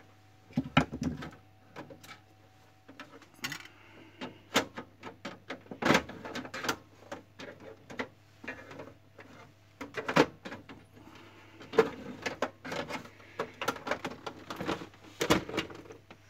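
Irregular clicks, taps and rattles of hands and a screwdriver working on the plastic casing of an HP LaserJet 3055 MFP as it is unscrewed and taken apart.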